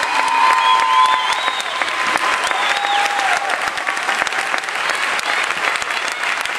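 Crowd clapping and cheering at the end of a pom dance routine, with a few long, high-pitched shouts above the applause.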